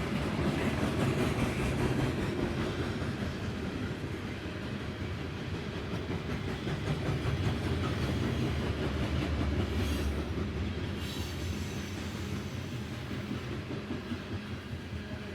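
Norfolk Southern coal train rolling past, its cars rumbling along the rails in a steady run, easing off a little near the end.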